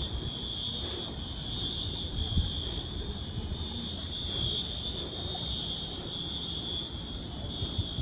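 Wheelock fire alarm horns sounding together in a school fire drill, a steady high-pitched tone that swells and fades a little but never stops, over a low rumble.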